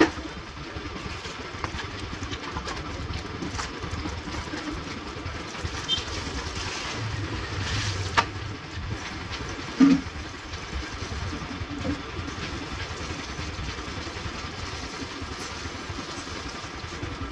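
Water from a garden hose running and splashing on wet concrete during a motorcycle wash, with a few light knocks and one loud thump about ten seconds in.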